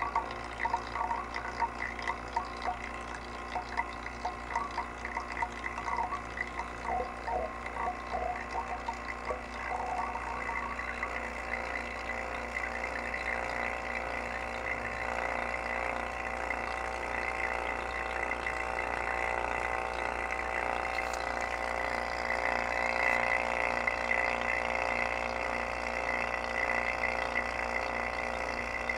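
J/B two-stage vacuum pump running while pulling a deep vacuum. For the first ten seconds or so it sputters irregularly, then it settles into a steady hum.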